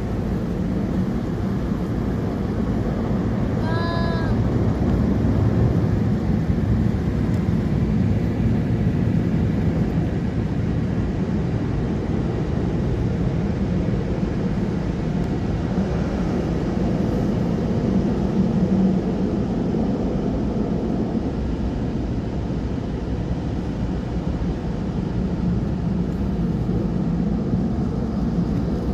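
Mechanical automatic car wash running over a car, a steady low rumbling wash noise that holds even throughout.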